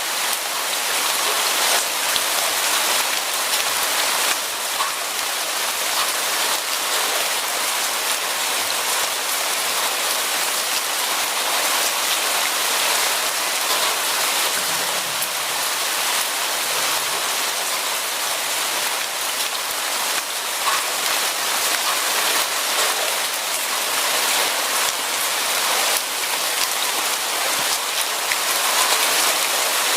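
Steady rain falling on a surface, a dense even hiss made up of many small drop ticks.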